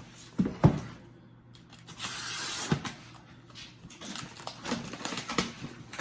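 Handling of trading-card boxes and packaging on a table. Two knocks come about half a second in, a scraping rustle around two seconds in, then a run of small clicks and rustles.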